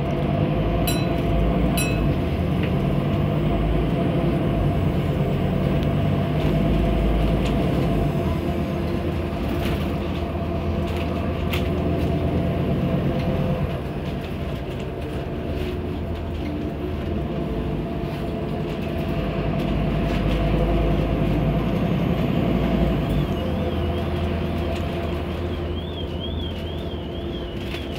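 Scania N230UD double-decker bus heard from its upper deck on the move: the five-cylinder diesel and driveline drone with a steady whine over road rumble, a few sharp body rattles, the noise swelling and easing with the driving. Near the end a high warbling electronic tone comes in.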